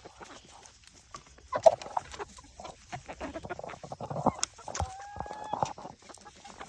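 Chickens clucking amid scattered knocks and scuffling, with one drawn-out, steady-pitched call about five seconds in.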